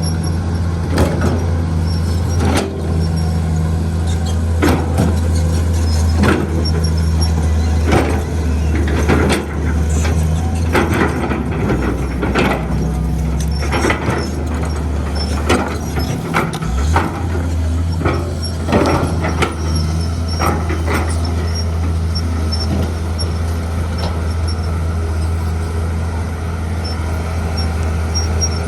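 Diesel engine of heavy earthmoving equipment running steadily, with many irregular knocks and clanks over it for most of the time. The engine note shifts briefly about two-thirds of the way through.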